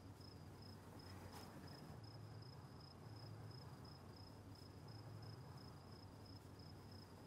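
Near silence: a cricket chirping faintly in an even high pulse, about three chirps a second, over a low room hum.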